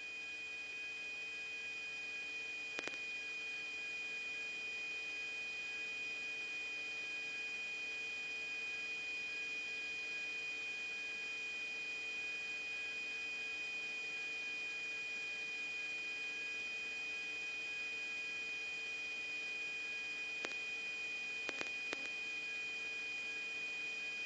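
Steady electrical hum of a radio recording between transmissions: several fixed tones held unchanged, a thin high one the most prominent. Faint clicks come about three seconds in and again a few times around twenty to twenty-two seconds in.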